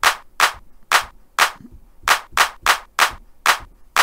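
Roland TR-808 hand-clap sample played about ten times in quick, uneven succession, each a short, sharp snap, triggered by hand from a browser drum-machine's Play Clap button.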